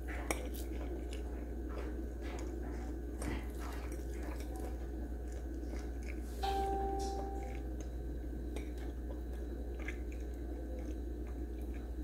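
A fork cutting through cake and touching a ceramic plate: scattered faint light clicks over a steady low hum. A short steady tone sounds for about a second just past the middle.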